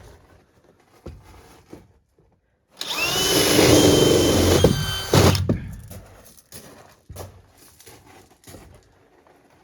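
Power drill running for about two and a half seconds, its whine rising as it spins up and then holding steady, followed by a short second burst; light knocks and handling clatter before and after.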